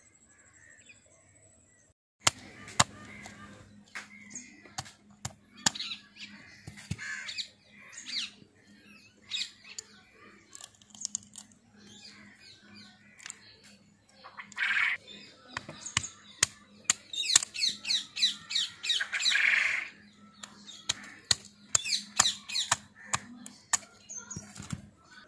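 Snail shells being cracked and broken open by hand against a stone slab: a string of sharp cracks and clicks, with a couple of short rasping bursts. It starts about two seconds in, over a faint steady hum.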